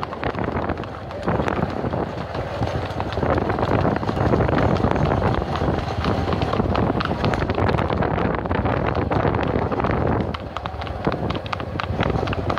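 Wind buffeting the microphone over a moving vehicle's running engine.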